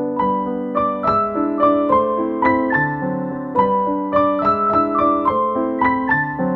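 Background music: a gentle piano or electric-piano tune, notes struck at an even pace.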